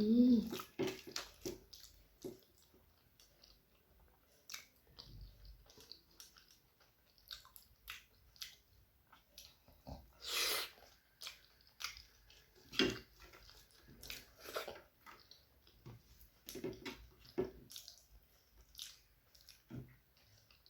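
Close-miked chewing and wet mouth sounds of a person eating rice with dry fish curry: irregular soft smacks and clicks, with one louder, longer noisy burst about ten seconds in.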